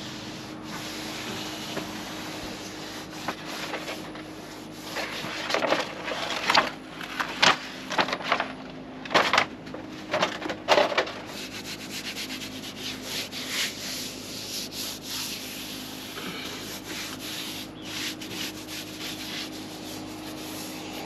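Hands rubbing and pressing a foam traction-pad panel down onto the boat to set its pressure-sensitive adhesive: continuous scuffing, with sharper, louder rubs between about 5 and 11 seconds in.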